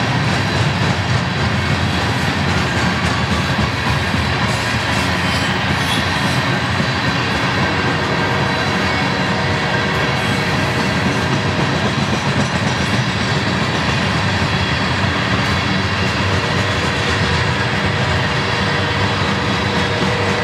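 Freight cars loaded with steel coils rolling past at steady speed: an even, continuous rumble of steel wheels on the rails.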